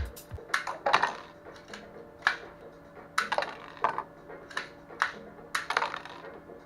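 Irregular sharp plastic clicks and light clatter, roughly one or two a second, from a brick-built Lego-style air gun being worked, with faint music underneath.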